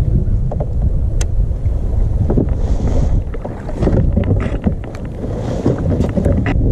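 Wind buffeting the microphone over water slapping and sloshing around a fishing kayak, with a few sharp clicks and knocks from on board.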